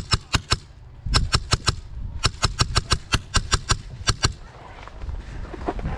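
Airsoft gun firing rapid shots, about five or six a second, in three strings. The last and longest string stops a little past halfway, and fainter knocks follow.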